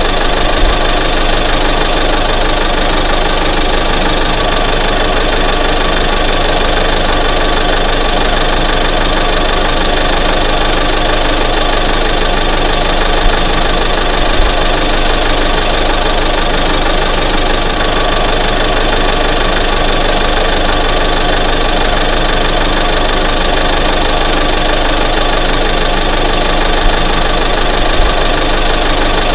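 1988 Ford F-150 pickup truck engine idling steadily, with an even, unchanging note.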